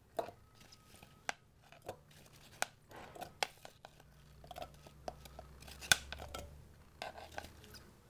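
Chopped apple pieces dropped by hand into a clear plastic cup: scattered, irregular soft taps and clicks as the chunks land and knock against the plastic.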